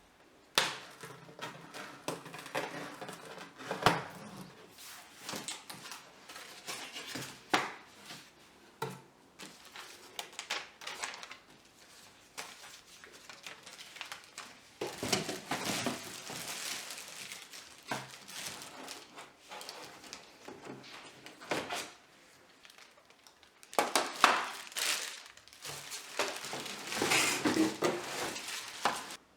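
Irregular clinks, knocks and rustles of dishes and kitchen items being handled and set down, with louder clusters of clatter near the middle and toward the end.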